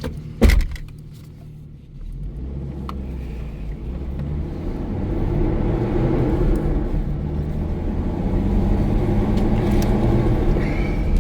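A sharp thump about half a second in, then a car's engine picking up as it drives off, the engine and road rumble growing louder as it gathers speed.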